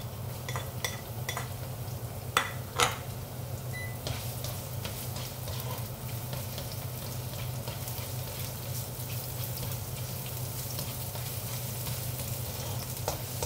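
Diced onion sizzling in hot oil in a nonstick wok while a spatula stirs it, with scattered clicks and scrapes of the spatula and two louder knocks between two and three seconds in.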